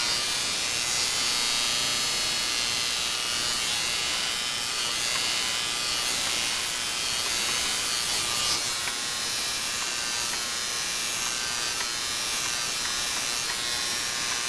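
Electric hair clippers buzzing steadily while shaving a head, the motor's hum unchanging throughout.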